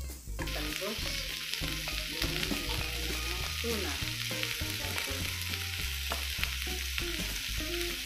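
Sweet potato tops sizzling in a hot oiled pan as they are stirred and turned with a metal fork, with the fork clicking and scraping against the pan. The sizzle starts suddenly a moment in.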